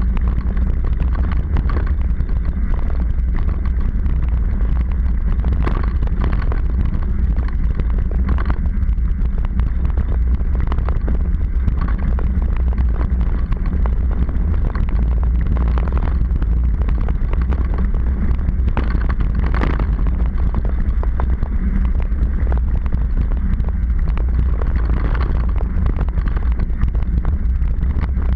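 Heavy wind rumble on the microphone of a camera mounted on a mountain bike's seatpost as the bike rolls down a paved road, with knobby-tyre noise on the tarmac and scattered clicks and rattles.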